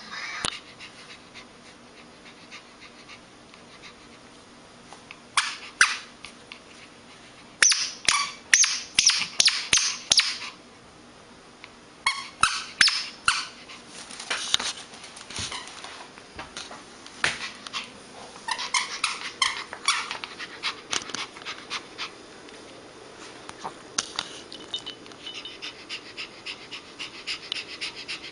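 Small Pomeranian dog's high-pitched yapping, in quick runs of several yaps with pauses between.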